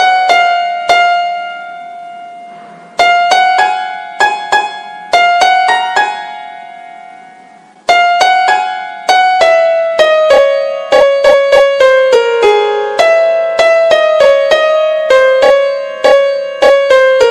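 Keyboard music in a piano-like sound: a melody of single struck notes in a high register with no bass, letting notes ring out and die away twice, then a quicker run of notes from about eight seconds in.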